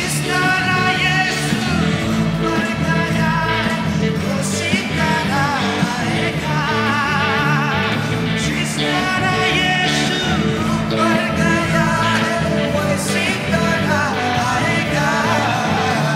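A live worship band plays a Nepali worship song with drum kit, electric guitar and keyboards under a sung melody with vibrato, keeping a steady beat.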